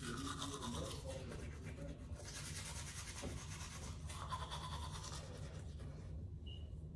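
Manual toothbrush scrubbing teeth in quick back-and-forth strokes, with a short break about two seconds in and fainter brushing near the end.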